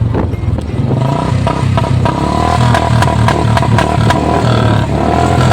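Royal Enfield Bullet single-cylinder motorcycle engine running, with sharp cracks from the exhaust scattered through the middle: the bike misfiring.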